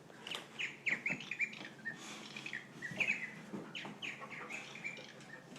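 Bird chirping: a string of short, quick chirps, some sliding downward and some held briefly, repeated throughout.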